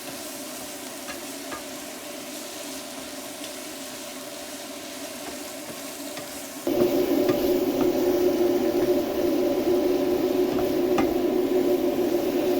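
Pork and vegetables stir-frying in a pan: a steady sizzle with occasional light taps of the spatula. About two-thirds through, the sizzle turns suddenly louder.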